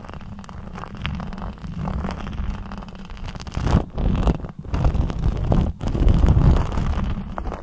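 Lipstick rubbed directly against the microphone: close, irregular scraping and rumbling that grows louder about halfway through.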